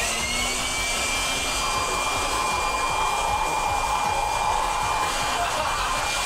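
Leaf blower running flat out, its nozzle blasting air into a man's open mouth: a steady rush of air with a high whine that climbs briefly at first, then holds steady.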